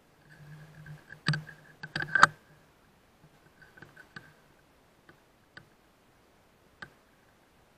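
Sharp clicks and knocks. A cluster of loud ones comes between about one and two and a half seconds in, over a steady low hum with a higher whine. Then a few faint single clicks follow, spaced out.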